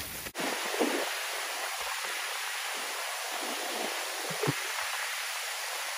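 An abrupt cut a fraction of a second in ends the wind rumble, leaving a steady hiss of wind in the pine trees. A few faint low knocks come around the middle.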